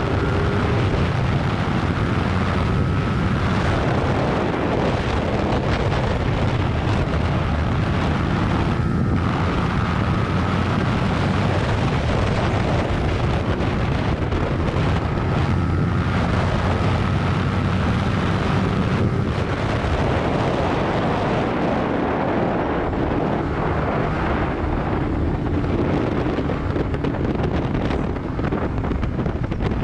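Yamaha YZF-R15's single-cylinder engine running under way, heavily masked by wind buffeting the microphone. A faint rising engine whine is cut by brief dips every few seconds.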